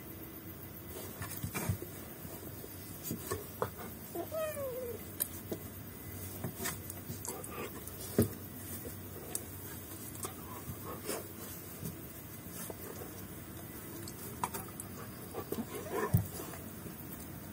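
A pet animal giving a brief call that falls in pitch, about four seconds in, with a few fainter calls later, among scattered light taps and knocks.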